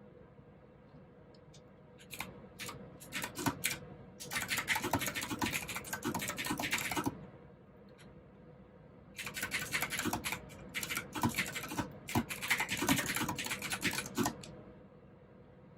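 Typing on a mechanical keyboard with clicky blue switches. A few scattered keystrokes come about two seconds in, then a fast burst of typing, a pause of about two seconds, and a second longer burst that stops a second or so before the end.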